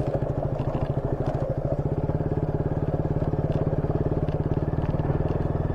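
Motorcycle engine running at a steady, even pace, with a few light ticks and rattles over a rough, broken road.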